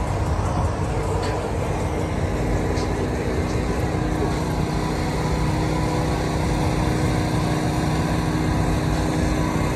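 Steady low rumble with a constant hum running underneath, the background of a running engine or machinery outdoors.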